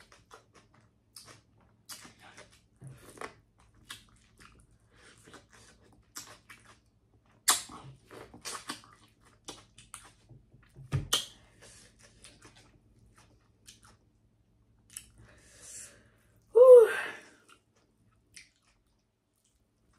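Close-miked chewing and mouth sounds while eating seafood boil, with scattered small crunches and clicks. A short voiced sound, like a hummed 'mm', comes about three-quarters of the way through.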